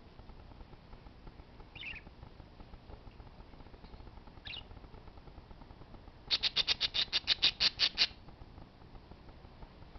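Parakeet calls: two short squawks, then a fast run of about a dozen sharp, loud call notes, roughly seven a second, lasting under two seconds.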